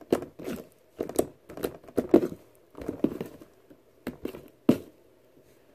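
Hands squishing and pressing a soft, glossy glue slime made with conditioner and baby oil, giving an irregular run of wet squelches and sticky pops, about a dozen in all, with the sharpest pop near the end as the slime is pulled up off the table.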